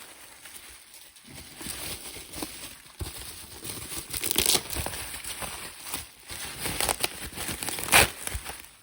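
Packaging being handled, crinkling and tearing as items are pulled out of a box, in irregular rustles with a few sharper crackles, the loudest near the end.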